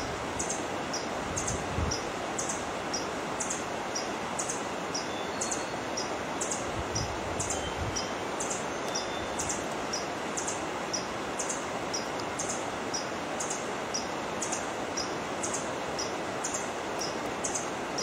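Forest ambience: a steady rushing noise with a short, high chirp repeating evenly about twice a second.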